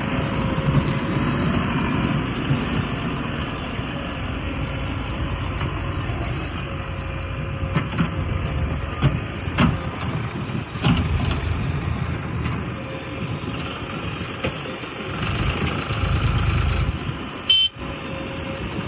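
Diesel engine of heavy machinery running steadily, with a few sharp knocks around the middle.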